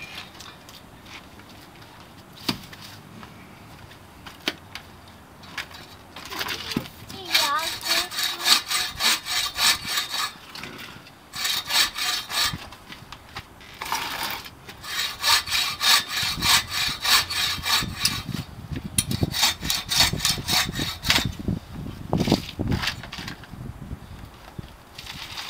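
TrailBlazer 24-inch takedown buck saw cutting through a log of about 10 inches, in bouts of rhythmic back-and-forth strokes that begin several seconds in and stop briefly a couple of times.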